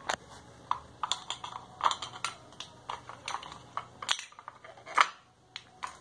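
Hard plastic clicks and knocks as small switch and socket modules are worked out of a PVC end cap and handled on a tile floor: many short, sharp clicks, the loudest about four and five seconds in.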